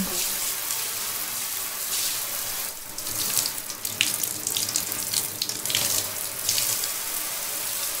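Shower water running and splashing as a person washes under the spray. The stream briefly quietens a little under three seconds in, then goes on with sharp, irregular splashes.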